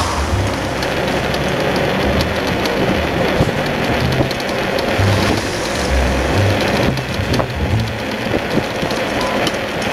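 Bicycle dog trailer rolling along a paved road: a steady rolling noise with small rattles and uneven low rumbles.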